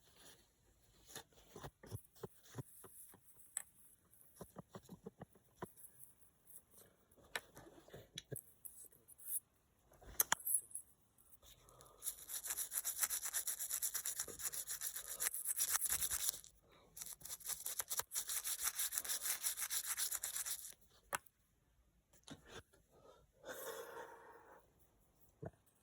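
Rapid back-and-forth scrubbing on a coin being cleaned, in two runs of about four seconds each. Before them come scattered light clicks and taps as the coin is handled.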